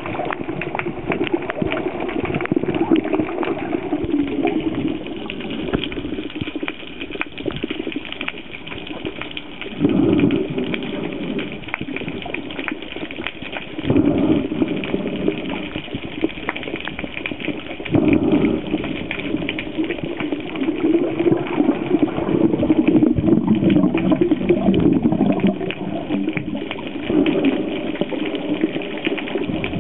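Sea water sloshing and bubbling, with the sound swelling louder every few seconds.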